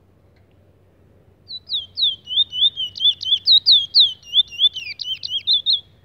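Caged Trinidad bullfinch (chestnut-bellied seed-finch) singing: a fast run of clear, downslurred whistled notes, about four to five a second, starting about a second and a half in and lasting about four seconds.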